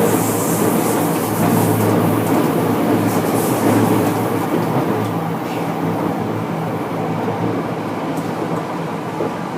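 Interior running noise of a Tokyu 5050-series electric train car under way: traction motor hum and wheel-on-rail rumble, steady, getting slightly quieter toward the end.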